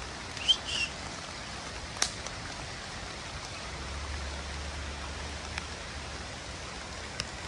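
Steady rain falling, with a brief high chirp about half a second in and a few sharp taps, the loudest about two seconds in.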